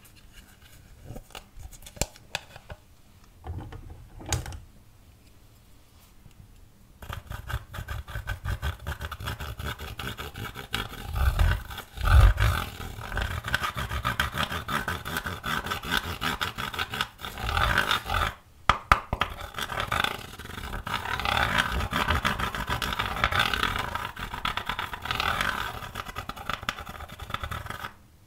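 A few clicks from a makeup palette case being handled, then a pointed tool scraping a pressed-powder highlighter pan into crumbs: a dense, rapid scratching that starts about seven seconds in and carries on to the end.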